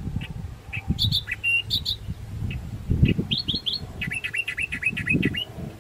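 Small birds chirping and calling, ending in a quick run of about ten short repeated notes, over a gusty low rumble of wind on the microphone.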